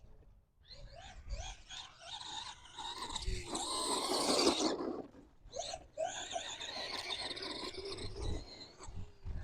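Stock brushed electric motor and drivetrain of an Arrma Gorgon RC monster truck whining under throttle in two runs with a short break between them, the pitch wavering as the throttle is worked.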